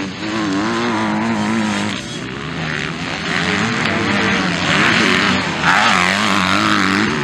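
Several 250cc-class motocross bikes racing, their engines revving up and down hard through jumps and corners. The pitch rises and falls repeatedly, and the engines grow louder in the second half.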